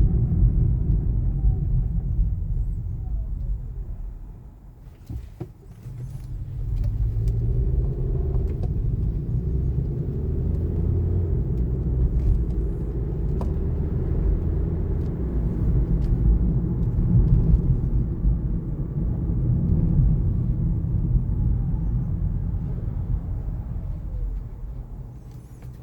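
2019 Kia Niro driving, a steady low road and running rumble that drops away for a couple of seconds about five seconds in, then picks up again.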